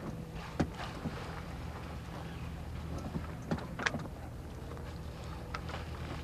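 A sailboat under way with its engine running as a steady low hum. Water splashes and slaps now and then, sharpest about half a second in and twice near four seconds in.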